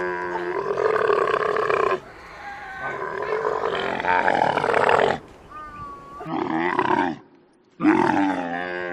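A farm animal calling, drawn-out cries with a clear pitch, four in a row with short breaks between them.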